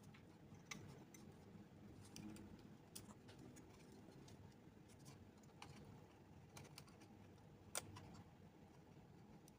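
Near silence with a few faint, scattered clicks and taps from hands handling a hard drive and the mini PC's case parts; the sharpest click comes near the end.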